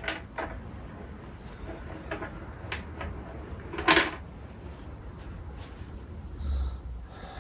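Handling noise from plastic action figures: a few light clicks and taps, with one louder knock about four seconds in.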